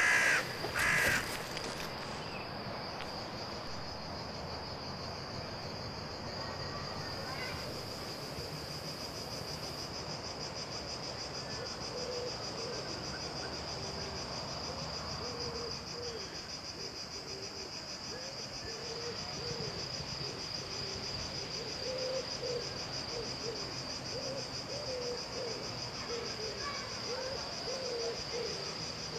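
Night ambience of crickets chirring steadily. It opens with two loud rustles in grass, like footsteps. From about halfway on, a run of short, low, wavering calls joins in.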